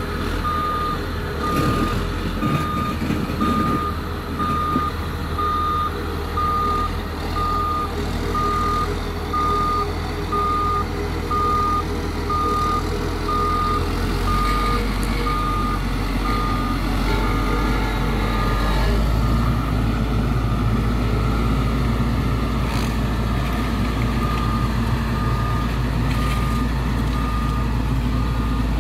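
Caterpillar 140K motor grader's diesel engine running under load as it works a layer of cold-mix asphalt, with its reversing alarm beeping steadily about once a second. The beeping stops about two-thirds of the way through, the engine grows a little louder, and the beeping returns near the end.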